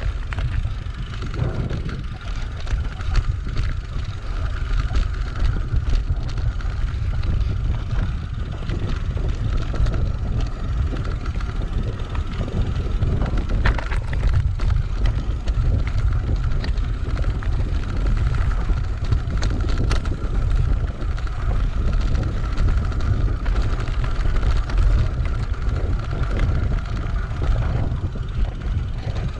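Mountain bike rolling over a rocky gravel track: a continuous rumble with scattered clicks and rattles as the tyres and frame go over loose stones, and wind buffeting the microphone. A steady high whir runs underneath throughout.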